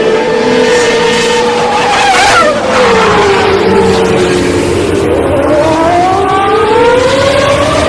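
Formula 1 race car engines running at high revs. One car passes with a quick drop in pitch about two and a half seconds in, then an engine pitch climbs steadily over the last few seconds as a car accelerates.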